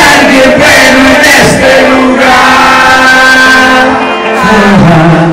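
A live band playing loud music, with long held notes and no lyrics yet sung.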